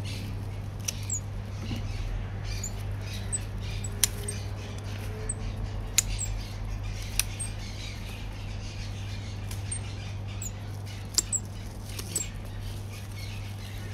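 Scissors snipping paco fern fronds: a handful of sharp, irregularly spaced snips. Small birds chirp in brief high calls throughout, over a steady low hum.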